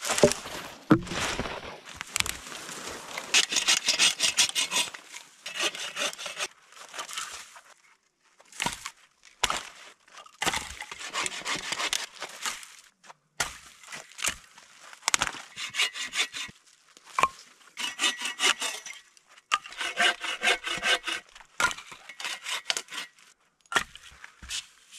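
Hand saw cutting through wood in several runs of quick back-and-forth strokes, separated by pauses: firewood being cut. A few sharp knocks near the start.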